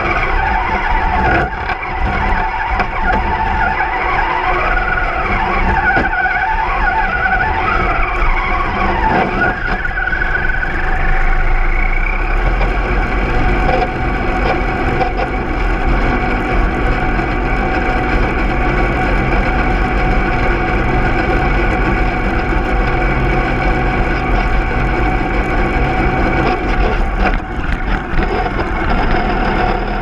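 Axial SCX10 Deadbolt RC truck driving through snow, heard from a camera mounted on the truck. Its electric motor and gears whine, rising and falling in pitch with the throttle for the first dozen seconds, then running more steadily, over a steady rushing noise of the tyres churning snow.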